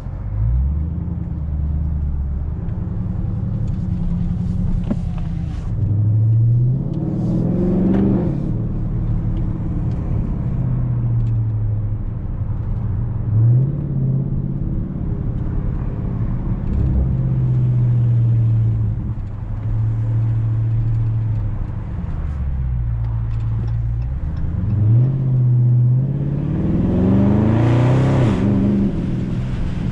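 2020 Dodge Charger Scat Pack's 6.4-litre HEMI V8, tuned and with its mid muffler deleted, under hard acceleration. The pitch climbs in several pulls with steadier cruising between, and the longest and loudest pull comes near the end.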